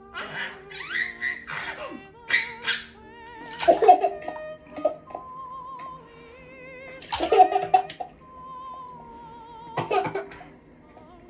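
Baby of a few months laughing and giggling in short bursts: a quick run of giggles at first, then three separate laughs spaced a few seconds apart. A song with wavering, held notes plays underneath.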